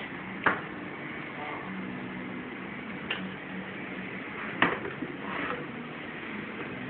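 Spring clamps and the aluminium frame being handled on a workbench: three sharp clacks, the loudest about four and a half seconds in, followed by a brief rustle, over a steady low hum.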